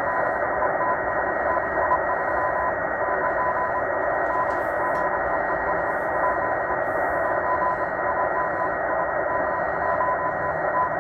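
Morse code from the M12 numbers station: a keyed beeping tone that switches rapidly on and off, under steady shortwave hiss, received in upper sideband on a Tecsun H-501x portable radio.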